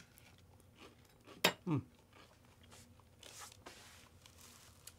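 Two people biting and chewing slices of freshly baked white sandwich bread, with a faint crunch of crust. About a second and a half in, a sharp clack of a knife set down on a wooden cutting board, followed at once by a short voice sound falling in pitch.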